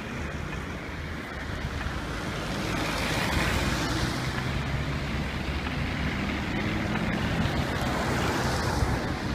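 Street traffic on a slushy road: a passing vehicle's engine and tyre hiss swell about three seconds in and stay loud until near the end.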